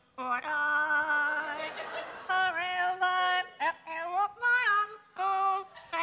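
Yellow-naped Amazon parrot singing a song in a human-like voice into a microphone: held notes with sliding pitch, in short phrases broken by brief pauses.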